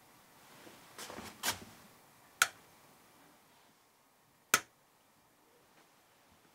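A few sharp clicks or knocks in a quiet room: a small cluster about a second in, then two single sharp clicks about two seconds apart.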